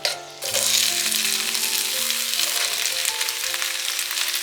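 Food frying in hot oil in a pan, a loud steady sizzle that starts abruptly about half a second in. The pan holds the spiced base for an okra curry.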